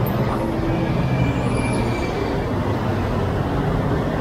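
Steady road traffic on a busy multi-lane road: cars and motorcycles passing with a continuous low engine and tyre rumble.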